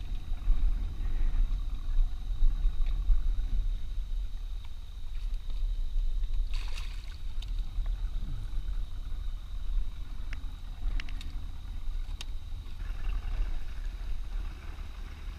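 Small fishing boat under way: a steady low rumble on the microphone with a faint constant high whine, and a few sharp clicks and knocks in the second half.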